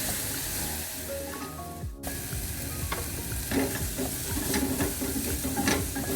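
Garlic and scallion whites sizzling in a pan, the hiss dying down after a splash of water is added. A utensil then stirs them, with sizzling and short clacks and scrapes against the pan.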